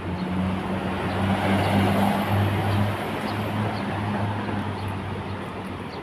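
City street traffic: a large vehicle's engine hum over tyre and road noise, swelling to its loudest two to three seconds in and then fading. Faint light ticks repeat about twice a second.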